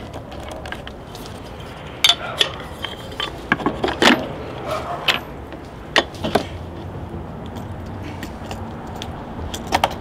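Small metal fittings clicking and clinking as a handle is bolted onto the plastic case of a portable fridge-freezer with a Torx driver: a run of sharp clicks through the middle and a couple more near the end.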